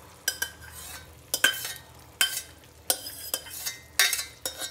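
Steel ladle scraping and knocking inside a stainless steel pot as thick cooked khichdi is scooped out of it. About seven sharp metallic scrapes come at an irregular pace, each with a brief ring.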